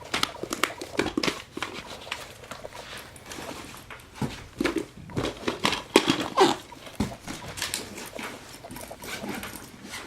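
Rustling, knocking and clattering of objects being handled and moved about, someone rummaging through belongings in a hurried search.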